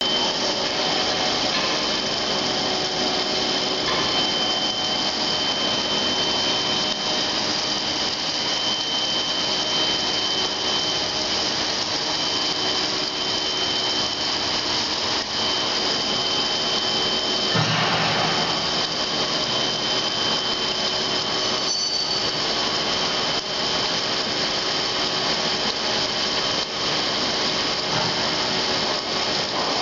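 Fermat WFT 13 horizontal boring mill milling a T-slot, a steady machining noise with a constant high whine from the spindle and cutter.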